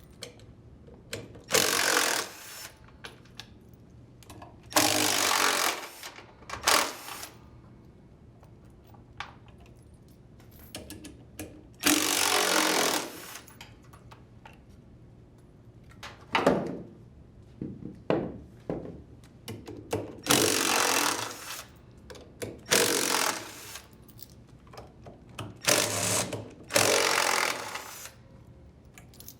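Impact driver with a 10 mm socket running in bursts of about a second, about eight times, backing out the bolts that hold the washer tub's weights. There are a few shorter knocks in between.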